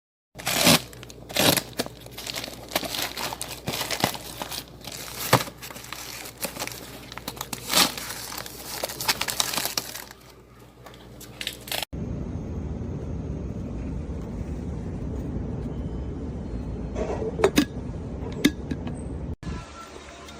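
Packaging crinkling and tearing, with many sharp crackles, as the carafe is unwrapped; after about twelve seconds it gives way to a steady low hum with a few scattered clicks.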